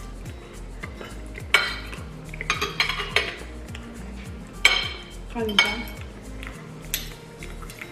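Metal forks and spoons clinking and scraping against ceramic plates as two people eat, in several sharp clinks, the loudest about a second and a half in and near five seconds in.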